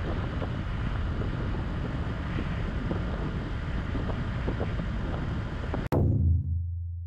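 Wind buffets the microphone over the running engine of a Suzuki Gixxer SF 150 single-cylinder motorcycle at road speed. About six seconds in, the sound cuts off sharply and one deep, steady booming tone takes over, then slowly fades.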